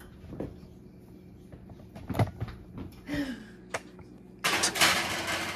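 Gas range oven door and a metal baking pan being handled: a few scattered knocks and clunks. About a second before the end comes a loud rushing noise lasting about a second.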